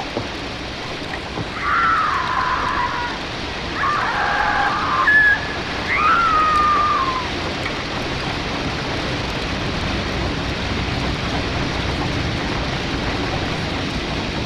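Eerie sound-effect backdrop: a steady hiss like rain or wind, over which four falling, wailing cries sound one after another in the first half, the last and longest dropping in pitch near the seven-second mark.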